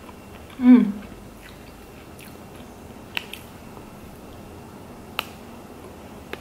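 A short hum with falling pitch from the eater about a second in, the loudest sound, then a few sharp crisp snaps as a chocolate-coated cookie is bitten and broken.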